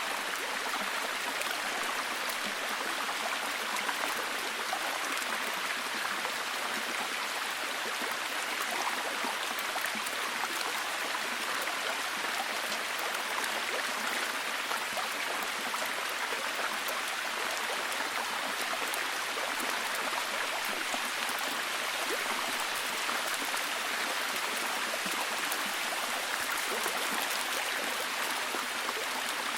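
A forest stream running steadily, mixed with falling rain; a dense, even wash of water noise with many fine patters of drops.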